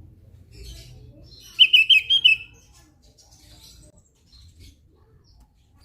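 Javan grey-throated white-eye (opior jawa) calling: a quick, loud run of about five chirping notes about one and a half seconds in, with faint, scattered high chirps around it.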